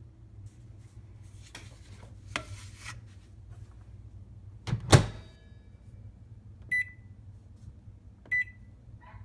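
Microwave oven running with a steady low hum and scattered clicks, a loud clunk about halfway through, and two short electronic beeps from its panel near the end.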